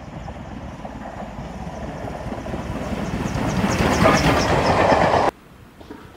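LMS Stanier Black Five 4-6-0 steam locomotive 45212 and its coaches passing at speed, growing steadily louder as it approaches, with a quick regular beat near the peak. The sound cuts off suddenly about five seconds in.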